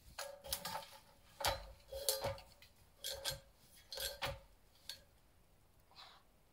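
Metal objects clinking and knocking together, about a dozen irregular clinks over several seconds, many with a brief ringing tone.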